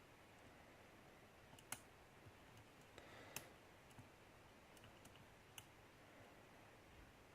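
Faint, irregular clicks of a lock pick working the pins of a pin-tumbler challenge lock, about seven sharp ticks over the few seconds, the loudest near two seconds in.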